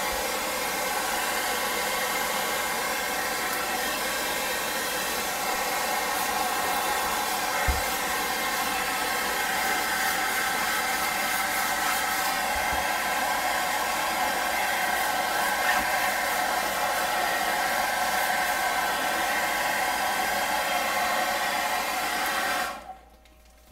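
Handheld hairdryer blowing steadily, a loud hiss with a steady motor whine. It is switched off abruptly near the end.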